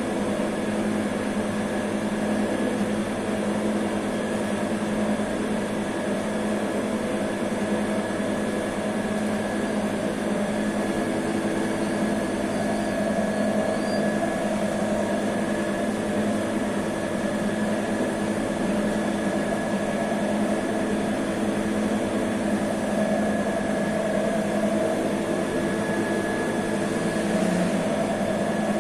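Steady hum of running bakery machinery, with several steady tones held over a broad noise that does not change.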